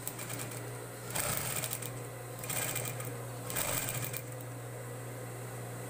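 Industrial sewing machine stitching in three short stop-start bursts, each well under a second, over the steady hum of its running motor; after about four seconds only the motor hum remains. The halting bursts come from a beginner still learning to control the foot pedal.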